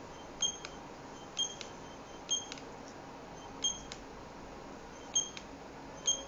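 GA222G GSM alarm panel's keypad beeping at each key press as a phone number is keyed in: six short high beeps at uneven intervals, each followed by a faint click.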